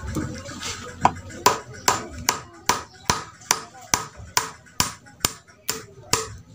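Hammer driving a nail into the wooden top of a stool: a steady run of sharp strikes, about two and a half a second, starting about a second in.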